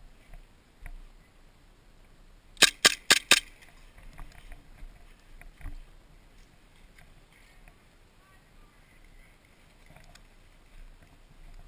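Four sharp airsoft gun shots fired in quick succession, about five a second, a few seconds in; the rest is quiet outdoor background with a few faint clicks.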